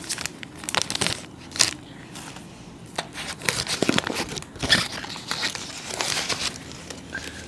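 Foil and paper chocolate-bar wrappers crinkling and tearing as they are peeled off by hand, with sharp crackles at irregular intervals.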